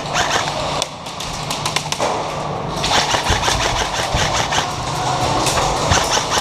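Airsoft guns firing in rapid bursts of sharp clicks and pops, several bursts one after another, over a steady low hum.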